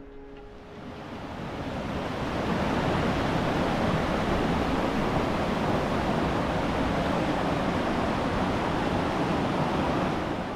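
Rushing water of a mountain creek: a steady, dense rush that swells in over the first couple of seconds and cuts off at the end.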